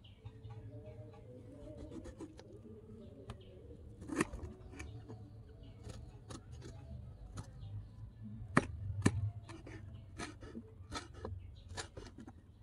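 A miniature kitchen knife slicing a small green ball eggplant on a wooden cutting board: irregular crisp clicks as the blade cuts through and meets the board, with two louder ones a little past the middle.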